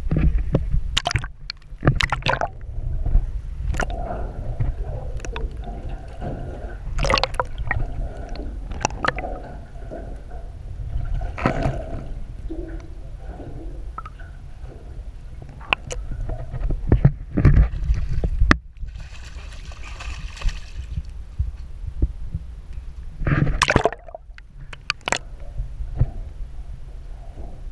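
Water sloshing and gurgling around a GoPro in its waterproof housing as it is dipped at and below the surface, heard muffled with a steady low rumble. Scattered sharp knocks and splashes run through it, with a brief hiss about two-thirds of the way in.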